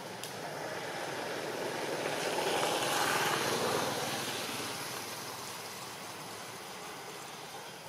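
A distant passing engine: a rushing noise that swells to a peak about three seconds in, then slowly fades.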